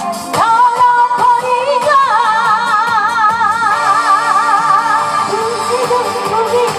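A woman singing a Korean song live into a microphone over instrumental accompaniment, holding one long note with wide vibrato through the middle before dropping to a lower note near the end.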